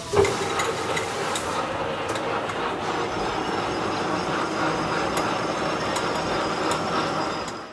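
Manual lathe running with a knurling tool pressed into a spinning 6061 aluminum tube at 150 RPM, the knurl wheels rolling a pattern into the metal: a steady mechanical clatter. A loud knock sounds at the very start, and the sound falls away near the end.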